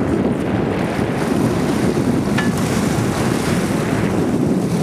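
Steady wind noise on the microphone over the running sound of a sport-fishing boat and water churning at its stern.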